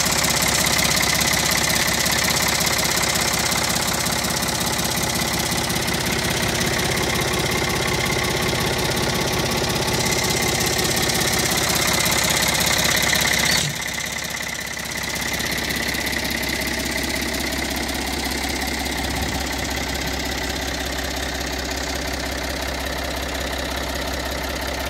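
Ford 4610 tractor's three-cylinder diesel engine idling steadily, heard close to the engine bay; the sound drops a little in level about fourteen seconds in.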